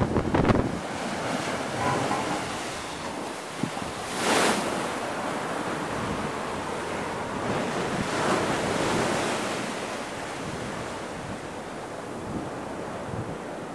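Storm-surge waves breaking over a sea wall and seawater washing across a promenade, under a gale that buffets the microphone throughout. A loud rush of noise rises and falls about four seconds in.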